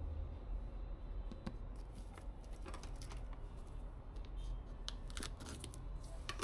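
Irregular light clicks and small rattles, bunching up about five seconds in, over a steady low hum.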